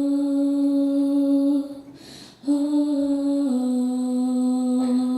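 A woman's unaccompanied voice singing two long held notes, with a short break between them; the second note steps down in pitch partway through.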